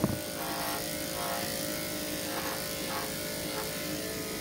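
Electric dog grooming clippers with a No. 10 blade running with a steady hum as they shave down the back of a Schnauzer's coat.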